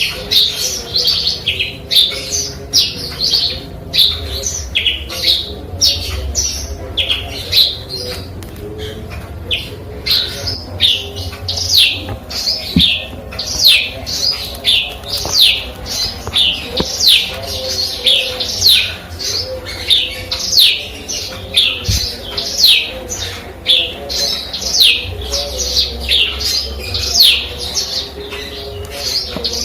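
Eurasian tree sparrow (burung gereja) singing a long run of quick downward-sliding chirps, about two to three a second, in a song trained with canary phrases (isian kenari).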